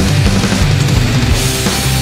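Loud rock music with drums and sustained bass notes.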